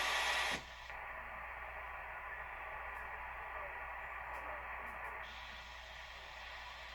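Static and band noise from a portable SDR receiver's speaker tuned to the 11-meter CB band in poor conditions. A loud full-range hiss cuts off about half a second in, leaving a quieter, duller hiss.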